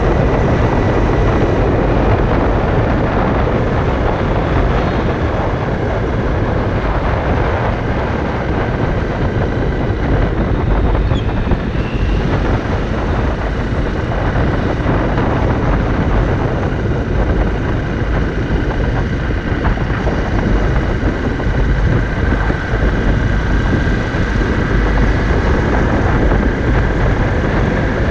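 Steady, loud wind rush on the microphone of a moving Honda CRF dirt bike, with the bike's engine running beneath it.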